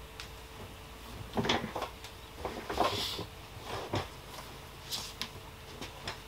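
Handling noise on a desk while a snack is eaten: a string of irregular light knocks and clicks with a brief rustle near the middle.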